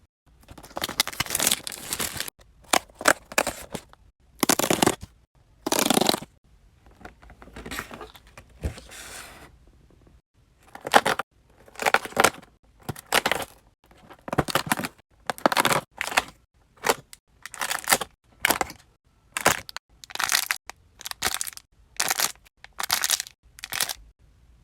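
Hands tearing open and handling a toy blind pack's packaging: a long run of short noisy bursts, irregular at first, then about one a second.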